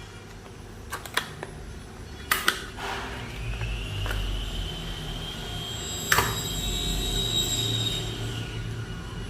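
A few sharp clicks, then a small motor spins up about three seconds in as a rising whine with a low rumble. It runs steadily for about five seconds, with another click in the middle, and winds down near the end.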